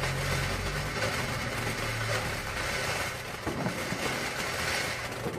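A lit firework hissing steadily as it burns and throws out sparks, with a low steady hum underneath.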